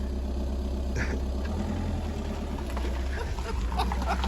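Car engine idling steadily with a low, even rumble.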